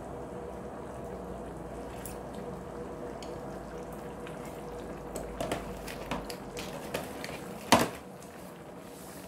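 Tom yum soup simmering in an electric skillet: a steady bubbling hiss. There are a few small clicks in the second half, and one loud, sharp sound about three-quarters of the way through.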